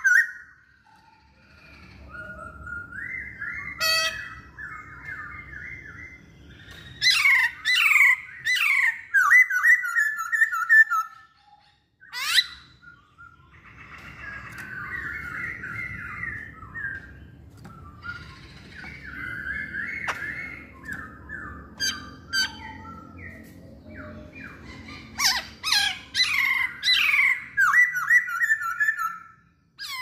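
A masked laughingthrush singing: runs of quick, falling whistled notes repeated in phrases, with louder ringing bursts about a quarter of the way in and again near the end, and short breaks between phrases.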